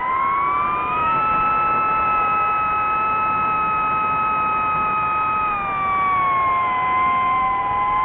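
DJI FPV drone's electric motors and propellers whining at high throttle, several tones at once. The pitch rises in the first second, holds steady, then drops about six seconds in as the throttle eases.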